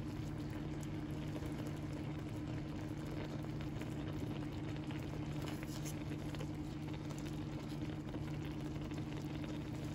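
Tteokbokki in red chili sauce bubbling as it simmers in a frying pan, with a steady low hum underneath.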